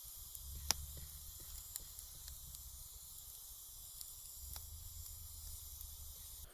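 Campfire crackling: a steady hiss with scattered sharp pops, one louder pop under a second in.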